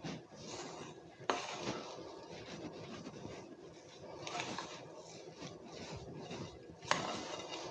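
A hand mixing soft, floury cookie dough in a glass bowl: faint rubbing and squishing, with a sharper tap against the bowl about a second in and another near the end.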